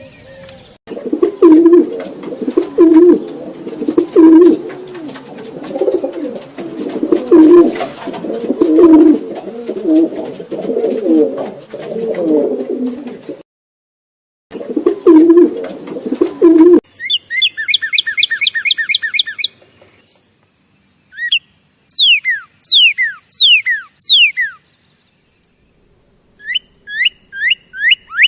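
A pigeon-family bird cooing in a repeated low series, which stops briefly and resumes. After that comes a different bird calling in quick bursts of high, falling chirps.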